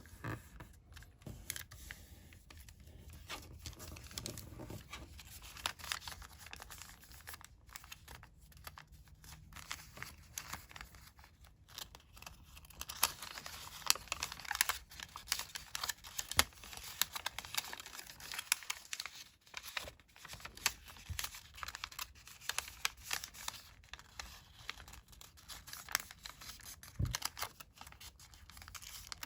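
A sheet of coloured origami paper being handled and folded by hand: crinkling rustles and short crisp creasing strokes, thickest and loudest about halfway through.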